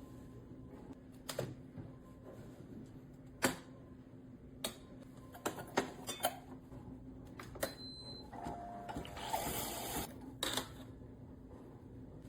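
Objects being handled: a series of separate clicks and knocks, with a short stretch of rustling or scraping about nine to ten seconds in, over a faint steady hum.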